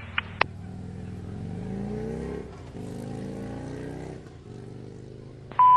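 A vehicle engine revving twice, its pitch rising each time. Near the end a steady radio alert tone begins.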